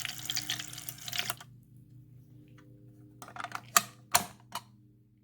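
Toy mini washing machine running with water inside: a small motor hums under a rapid splashing clatter, which cuts off about a second and a half in. A few sharp clicks follow later.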